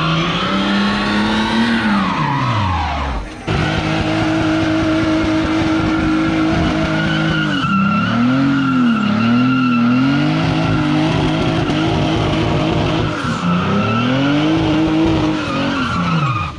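Car engine revving hard during a burnout, its pitch rising and falling as it is held on the throttle, over the noise of spinning tyres. The engine note drops away about three seconds in, then picks up again.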